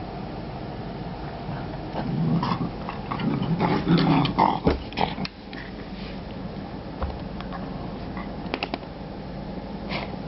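A dog growling in short bursts about two to five seconds in, with scattered clicks and knocks around it.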